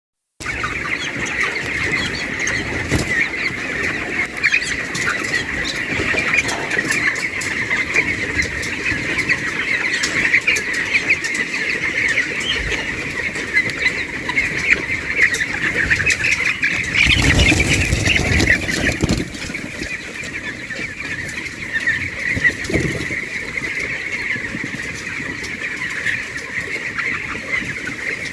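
A flock of broiler chicks peeping continuously, many high short calls overlapping. About 17 seconds in, a louder burst of noise lasts roughly two seconds.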